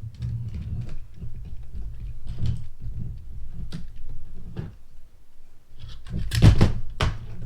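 Plastic Lego pieces clicking and rattling as they are handled and pressed together, with a louder clatter of sharp clicks about six seconds in.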